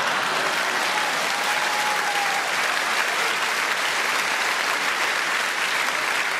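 Stand-up comedy audience applauding steadily: an applause break greeting a punchline.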